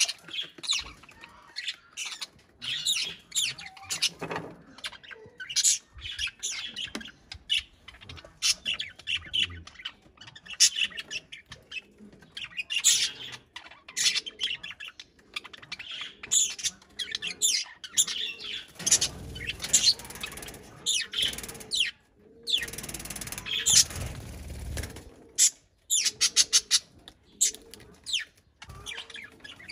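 Budgerigars squawking and chirping in quick, harsh bursts as they fight, with wing flapping in the scuffles.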